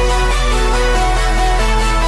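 Electronic dance music with held synth notes over a heavy, steady bass.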